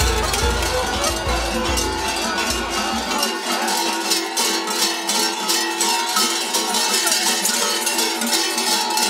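Large metal bells worn by goat-hair-costumed Arap mummers, clanging in a dense, irregular jangle as they walk and dance. Over about the first three seconds, traditional music with a deep low beat plays under the bells and then stops abruptly.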